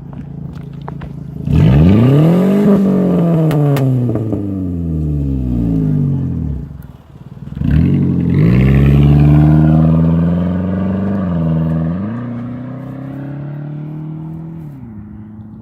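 Car exhaust through a Cherry Bomb aftermarket muffler: the engine idles, is revved sharply about a second and a half in and falls slowly away, then is revved again and held up before dropping back in steps. The exhaust note is loud and deep.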